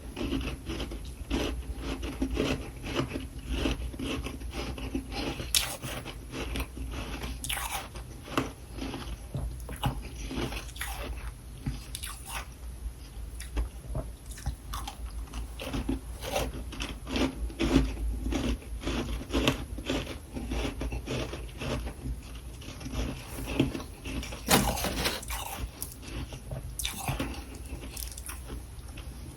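Irregular crunching and chewing, like a person biting and chewing crunchy food, with many short crackling crunches.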